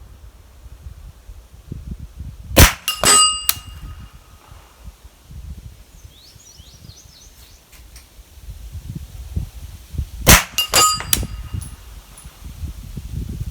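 Two suppressed 9mm shots from a PSA AKV carbine, about eight seconds apart. A fraction of a second after each shot comes the clang of the bullet striking a steel gong downrange, ringing briefly.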